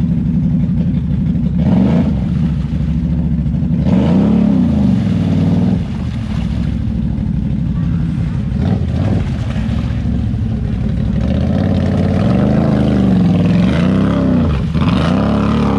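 Off-road ATV engine running, revved up and eased back down several times: about two seconds in, around four to five seconds in, and twice near the end.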